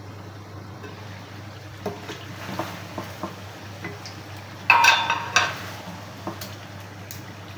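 Wooden spatula stirring thick chicken masala in a metal kadai, scraping and knocking against the pan, with a louder clatter and metallic ringing about five seconds in. A steady low hum runs underneath.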